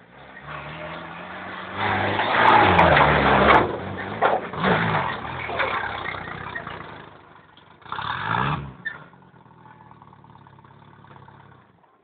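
ARO off-road vehicle's engine revving hard in surges as it drives over rough grass, the loudest about two seconds in, with another short rev that rises and falls about eight seconds in, then settling to a low steady run.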